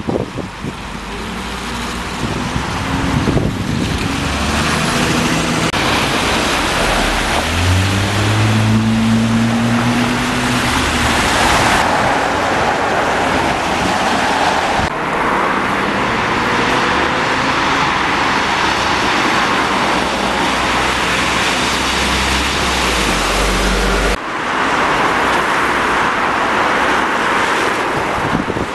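A double-decker bus's diesel engine pulling away, its note rising as it accelerates, over steady traffic and wind noise. The sound changes abruptly a few times to a steady hiss of traffic and wind.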